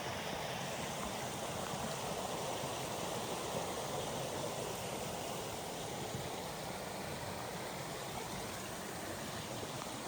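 Steady, even rushing of water in wet forest, with no breaks or distinct events.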